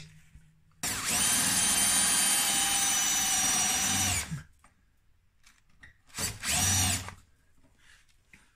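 Cordless drill with a spot-weld drill bit drilling out a spot weld in a car's steel sill panel. The motor whines steadily for about three seconds, then runs again briefly for under a second.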